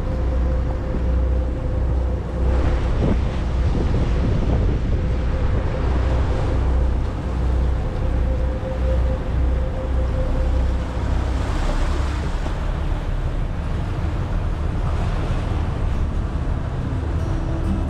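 Motor boat underway at sea: a steady low engine rumble and hum under wind buffeting the microphone and water rushing past the hull. The hum fades about eleven seconds in.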